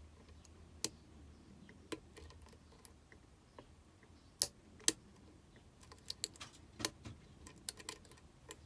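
Lock pick clicking against the pins of a Union D-Tec euro cylinder as the drivers are lifted and set: scattered sharp clicks, the two loudest about halfway through and a quicker run of clicks near the end.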